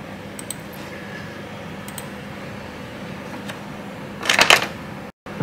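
Computer mouse clicking: a few single clicks spaced about a second and a half apart, then a quick run of louder clicks about four seconds in.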